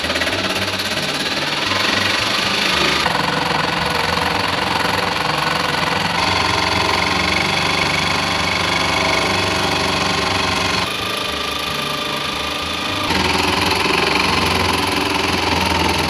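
Corded electric jigsaw running continuously while cutting through a plywood subfloor, its blade chattering through the wood. The pitch and level shift abruptly a few times.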